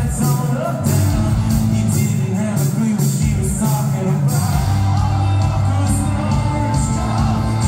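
Rock band playing live through the PA, heard from the audience: electric guitars, bass and drums with steady cymbal hits under a sung vocal line.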